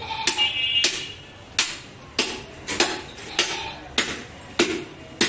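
Butcher's cleaver chopping into a hanging goat carcass: about nine sharp chops in a steady rhythm, each with a brief ring.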